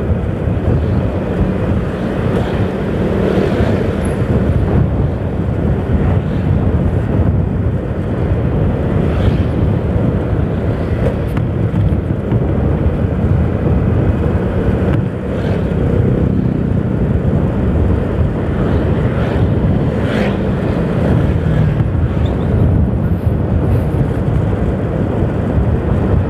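Riding a motorcycle, heard from a bike-mounted action camera: the engine runs steadily under road noise, with other motorcycles and cars in the traffic around it.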